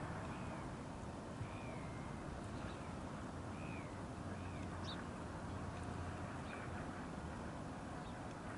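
A bird repeatedly calling in short arched chirps over a steady low rumble of wind and distant jet engines from an Airbus A320 on its takeoff roll.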